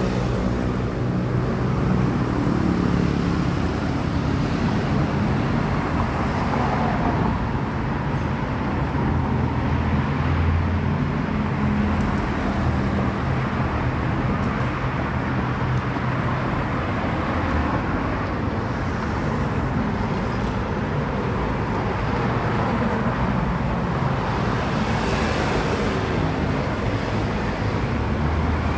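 Steady road traffic noise: motor vehicles running with a continuous low rumble.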